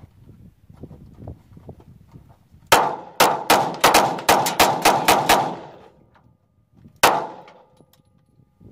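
Gunfire: a quick string of about ten shots, roughly three or four a second, then after a pause of over a second one more shot.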